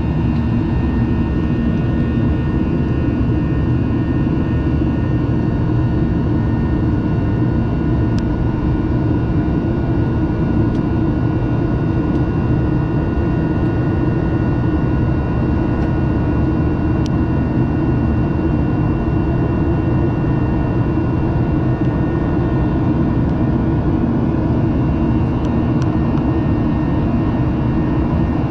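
Jet airliner in flight heard from inside the passenger cabin: a steady, unchanging rumble of engines and airflow, with a few faint steady whining tones from the engines above it.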